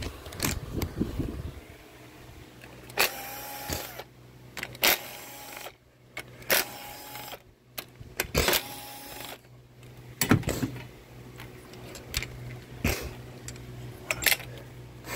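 Ignition coils being pulled off the spark plugs of a four-cylinder Ecotec engine by hand: four short squeaky scrapes about a second each as the coil boots come free, then a few sharp knocks as the coils are handled.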